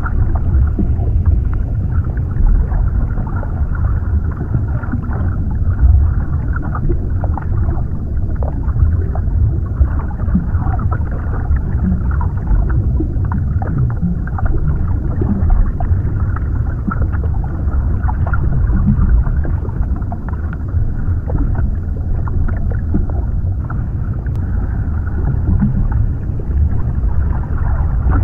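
Underwater ambience: a steady, deep, muffled rush of water, with small faint crackles scattered through it.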